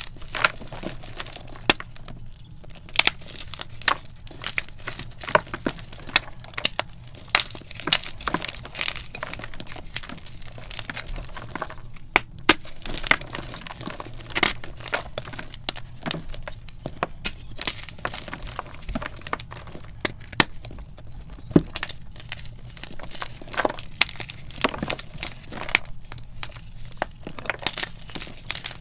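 Blocks of gym chalk crushed and snapped in the hands, crunching and crumbling with many irregular sharp cracks.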